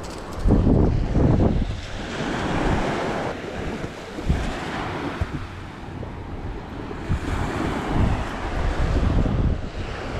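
Wind buffeting the microphone in gusts, loudest just after the start and again around eight seconds in, over small waves washing on the beach.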